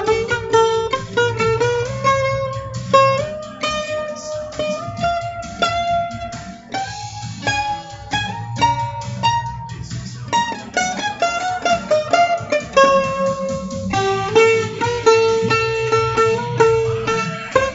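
A guitar picking a quick single-note melody that moves up and down, over a steady low backing.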